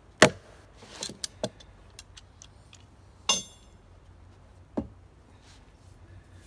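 Hand tool striking nails and a wooden plank laid on a fir log: a few sharp, irregular blows, the loudest just after the start, three quick ones about a second in, and one about three seconds in that rings like metal striking metal.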